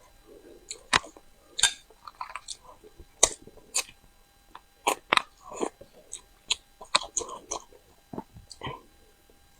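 Close-up mouth sounds of someone eating crucian carp: irregular wet smacks and clicks of chewing and biting.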